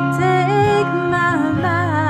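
A woman singing a slow song with vibrato over acoustic guitar accompaniment.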